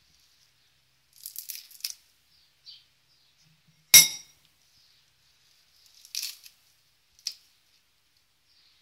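A metal spoon dropped into an empty ceramic bowl: one sharp clink about four seconds in. Around it, brief crackling rustles of fresh parsley being torn by hand.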